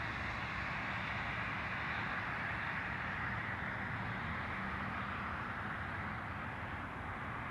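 Steady jet engine noise from airliners on the runway, heard at a distance, easing slightly near the end.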